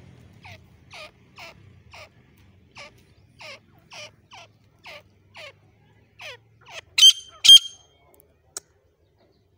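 Grey francolin calling: a steady series of short, falling call notes, about two to three a second, with two much louder, clear notes about seven seconds in.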